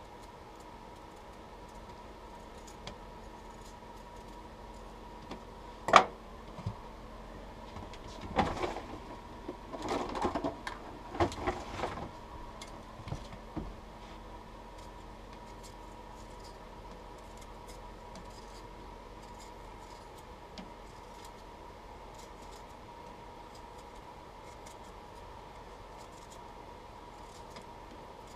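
Kitchen prep handling noise: a single sharp knock about six seconds in, then a few seconds of knocking and clatter of utensils and dishes, then only faint scattered ticks. A steady faint hum runs underneath throughout.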